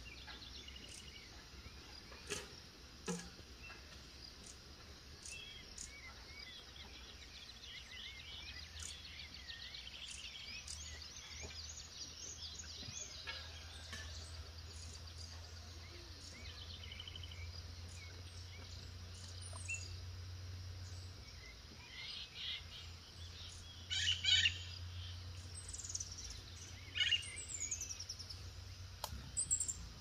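Mixed wild birdsong: several birds chirping, trilling and calling at once, with a louder run of quick notes near the end, over a steady low hum.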